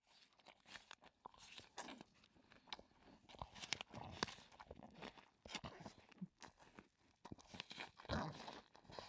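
Chacma baboon chewing food, an irregular run of crisp crunches and clicks.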